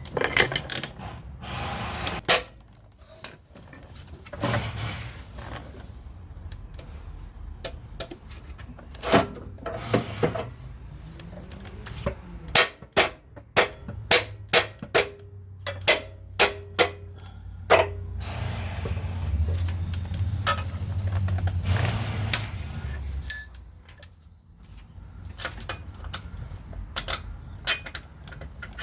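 Hand tools and bolts clinking and knocking against metal while a new rear engine mount is fitted and lined up, with a run of sharp separate clicks in the middle. A low hum sounds for a few seconds about two-thirds of the way through.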